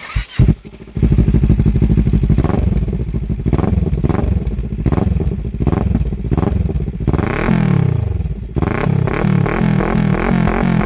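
Kawasaki Ninja 400's parallel-twin engine starting up through an aftermarket Akrapovic-replica exhaust. It catches about a second in after a brief start, then runs loudly. Near the end it revs in repeated throttle blips that rise and fall in pitch.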